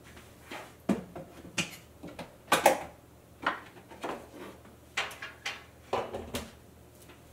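Kitchen items being handled on a shelf: about a dozen light, irregular knocks and clinks as containers are touched, picked up and set down, the loudest about two and a half seconds in.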